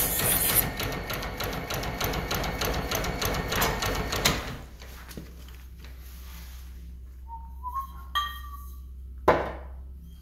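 Steel knife edge rasping against a moving DMT diamond sharpening plate on a motor-driven sled, a rough, continuous scraping for about four seconds. Then the blade is lifted off and only the electric gear motor's low hum remains, broken by a brief rising tone and a sharp knock near the end.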